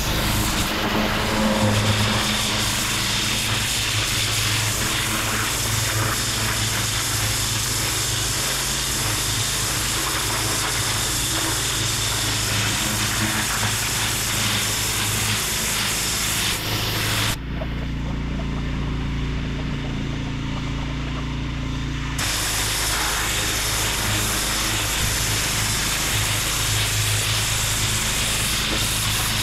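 Pressure washer lance blasting water onto brick block paving, a steady spray over the pressure washer's motor running underneath. A little past halfway the spray stops for about five seconds while the machine keeps running, then starts again.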